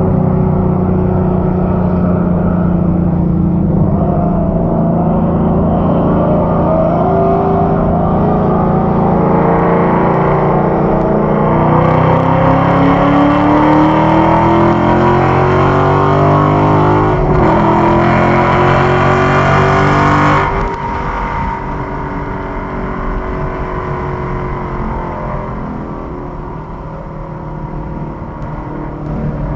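A 2015 Mustang GT's 5.0-litre V8 heard from inside the cabin: it runs steadily at part throttle, then accelerates with a rising note for about eight seconds from a little under halfway through. About two-thirds of the way in the throttle is lifted abruptly, leaving a quieter, lower engine note with road noise.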